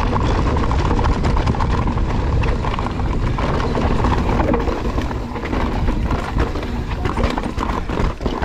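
Mountain bike riding fast down a rough dirt trail: tyres rolling over dirt and rocks, and the bike rattling over bumps with many sharp clicks and knocks, over a steady low rumble of wind on the microphone.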